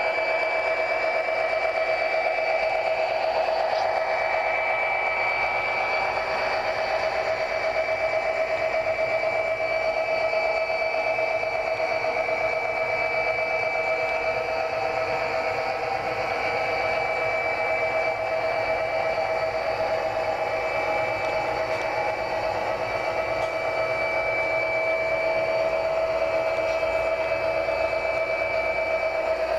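Sound of an EMD GP50 diesel engine, a steady running drone with a constant whine, played by the HO-scale locomotive's SoundTraxx Tsunami2 decoder through its small onboard speaker.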